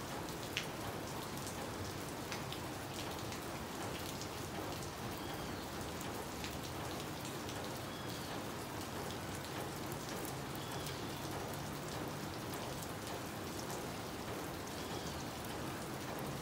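Steady rain falling, with scattered single drops ticking close by.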